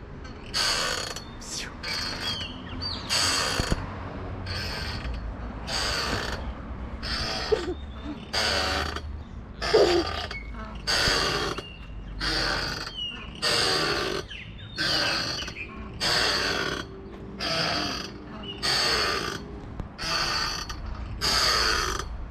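Playground swing's metal chains and hangers creaking and squeaking in a steady rhythm, about once a second, as the swing goes back and forth.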